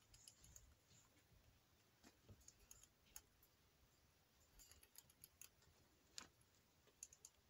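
Near silence with faint, scattered clicks and ticks from pet rats moving about on a computer chair.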